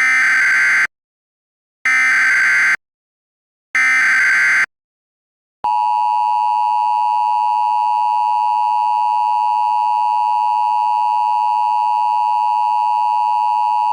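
Emergency Alert System tones: three short bursts of the digital SAME header screech, about a second each with a second's gap between them, then the steady two-tone EAS attention signal starting about five and a half seconds in.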